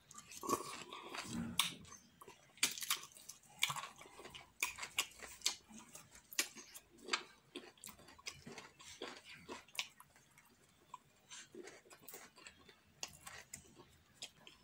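Wet chewing and lip-smacking of fufu with slimy ogbono and okro soup, eaten by hand: a run of sticky smacks and clicks, thickest and loudest in the first half, then sparser.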